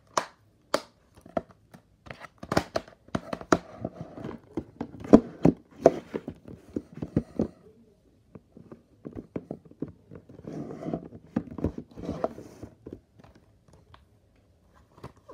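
Hands handling plastic DVD cases and discs: a string of sharp clicks and knocks mixed with rustling, busiest from about two to eight seconds in and again around ten to twelve seconds.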